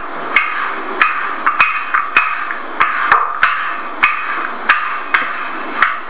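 Wooden rolling pin rolling out homemade pasta dough on a wooden table, played back from a recording: a steady rolling rustle broken by sharp wooden knocks at irregular intervals, about two a second.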